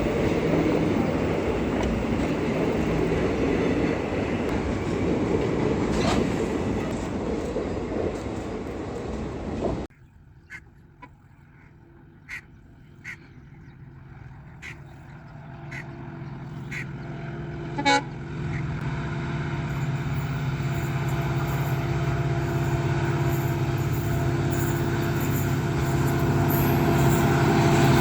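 A train rumbles past for about ten seconds, then the sound cuts off abruptly. Scattered clicks and a short toot follow. Then an EMD diesel locomotive's engine hums steadily, growing gradually louder to the end.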